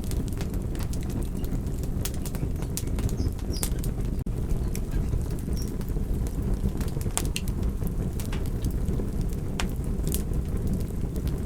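Fire burning in a fireplace: a steady low rumble of flames with irregular sharp crackles and pops. The sound drops out for an instant about four seconds in.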